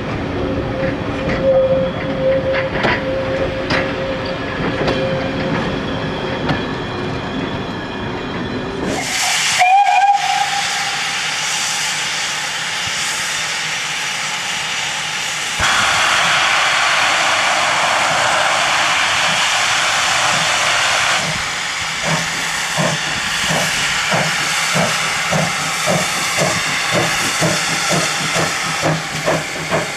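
Goods wagons rolling by with a steady squeal, then, after a cut, a GWR pannier tank steam locomotive gives a short whistle. It blows off steam with a loud hiss for about five seconds, then starts away with chuffs that quicken.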